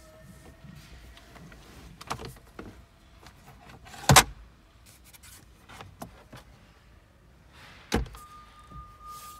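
Centre console armrest lid being handled, with a loud sharp knock about four seconds in and another knock near eight seconds, amid smaller clicks and rustling. Just after the second knock a steady electronic tone starts and keeps sounding.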